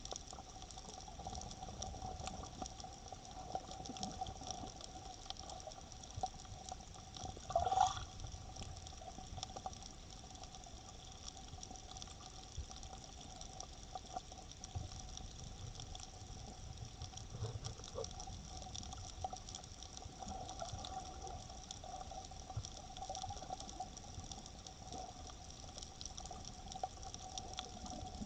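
Underwater ambience heard through a camera's dive case: a steady water wash dotted with many small crackling clicks, over a faint steady hum. A brief louder gurgling burst comes about eight seconds in.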